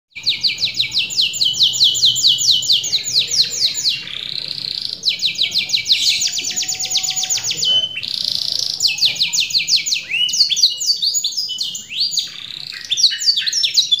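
Domestic canary singing: fast trills of rapidly repeated high notes, broken twice by a short buzzy passage, then a run of rising whistled notes near the end.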